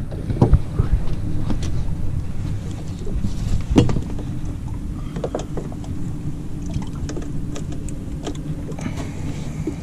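Jumper cables being handled and clamped onto a boat battery under a carpeted hatch lid: scattered clicks and knocks, the sharpest nearly four seconds in, over a steady low rumble.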